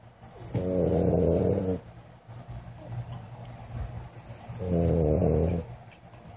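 Snoring: two loud, rattling snores about four seconds apart, each lasting a little over a second.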